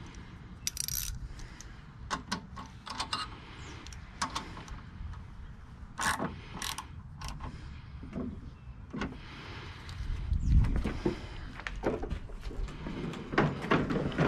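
Scattered clicks, clinks and knocks of hand tools and metal parts being handled on a Toro snowblower's engine, with a louder low bump about ten seconds in.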